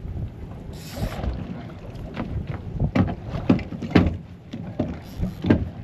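Wind buffeting the microphone on a fishing boat, with a series of knocks and thumps on deck; the loudest come about three, four and five and a half seconds in.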